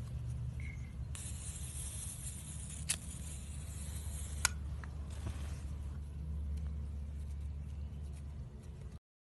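Handheld lighters being worked, giving two sharp clicks, about three seconds in and about four and a half seconds in, over a steady low outdoor rumble. A faint high hiss runs from about a second in until the second click, and the sound cuts off abruptly just before the end.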